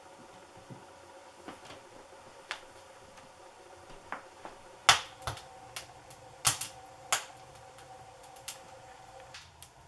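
Wood fire burning in a wood stove, crackling with irregular sharp pops, the loudest clustered in the second half.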